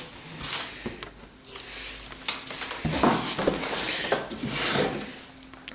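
Cardboard shipping box being handled and shifted: several short bursts of rustling and scraping cardboard.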